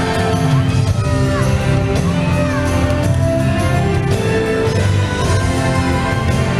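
Ice-show soundtrack music playing over the arena's sound system, in long held notes.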